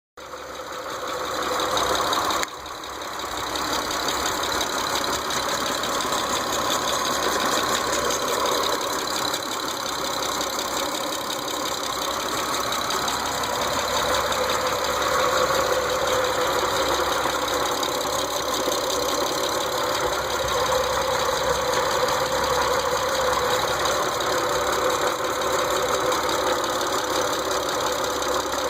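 2006 Mitsubishi Eclipse GT engine running steadily at idle with a ticking noise whose cause is not yet known.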